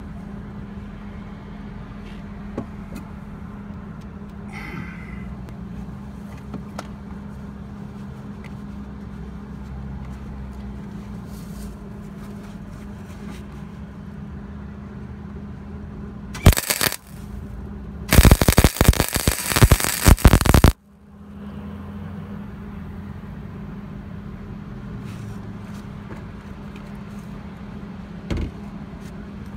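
Wire-feed (MIG) welder arcing with a loud crackle as a nut is welded onto a rusted, broken-off exhaust manifold stud: a short burst just past the middle, then a longer one of about two and a half seconds. A steady low hum runs underneath.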